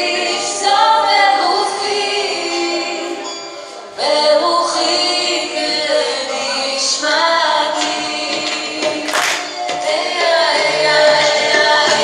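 A song with female voices singing over musical backing; the music fades down briefly and comes back in strongly about four seconds in.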